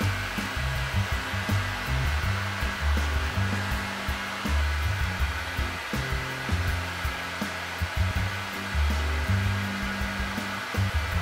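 Steady whir of a cordless electric pet clipper running as it trims a dog's paw, under electronic background music with a bass line and a ticking beat.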